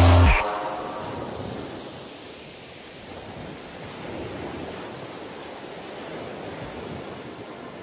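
Music cuts off about half a second in, leaving a soft, steady rushing noise.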